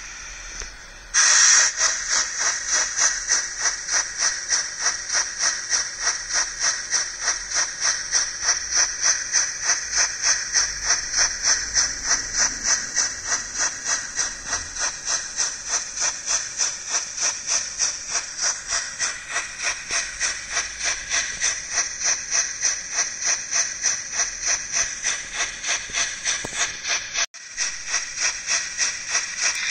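DCC sound decoder of a Trix H0 model of the Bavarian Gt 2x4/4 Mallet steam locomotive, playing steam-locomotive chuffing through the model's small onboard speaker. The chuffing keeps a steady beat a little over two a second over a constant hiss. It starts abruptly about a second in and cuts out briefly near the end.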